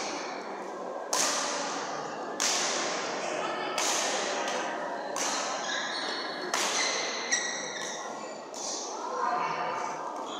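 Badminton rackets striking a shuttlecock in a rally, about one sharp hit every second and a half, each ringing on in the echo of a large sports hall.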